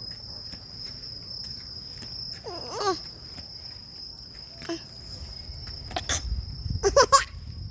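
Crickets chirring in one steady high-pitched trill. Brief voice sounds come a little before 3 s in and again, louder, around 7 s, with a sharp click just before.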